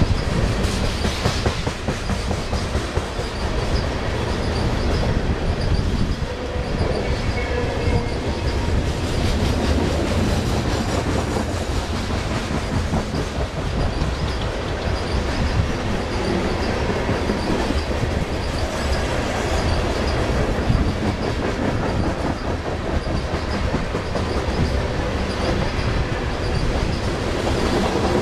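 Loaded coal cars of a freight train rolling past at close range: a steady rumble of steel wheels on rail with a continual run of clicks as the wheels cross the rail joints.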